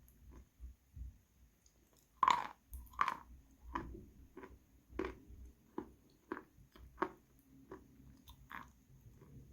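Mouth chewing Khrapovsky chalk with Astana 2 paste: crisp crunches about every two-thirds of a second. They start about two seconds in, and the first crunch is the loudest.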